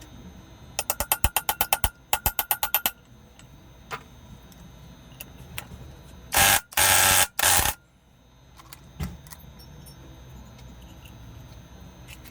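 Workshop tool sounds from a 100cc motorcycle engine being dismantled. Two quick runs of rapid metallic clicking, about ten clicks a second, come about a second in. A little past the middle there are three short, loud hissing blasts, and single light knocks are scattered in between.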